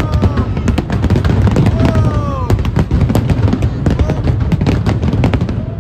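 Fireworks display going off in rapid succession: a dense run of bangs and crackles over a continuous low rumble.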